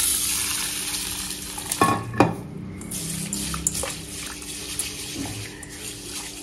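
Water pouring into a stainless steel bowl of split black urad dal, then a hand swishing and rubbing the dal in the water to wash it, fading near the end. A single clunk of metal comes about two seconds in.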